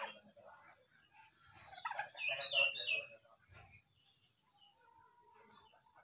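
A bird chirping: a quick run of high notes about two seconds in.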